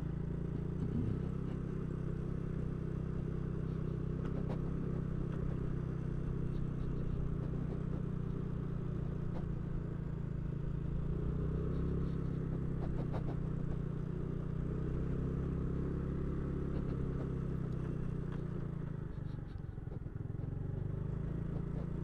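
Small motorcycle engine running at a low, steady speed while being ridden, easing off slightly near the end.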